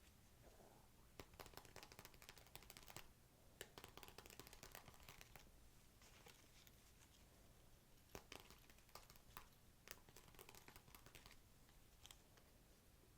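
Faint close-up unboxing handling sounds: crinkling and rustling with scattered light clicks and taps, in irregular bursts that die away shortly before the end.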